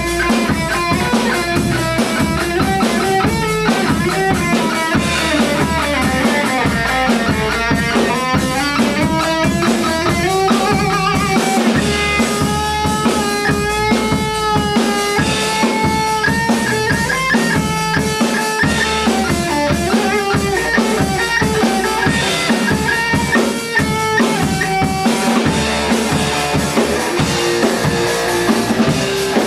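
Rock song in an instrumental passage: a drum kit keeps a steady beat under bass and guitar, with a bending, wavering melodic line on top.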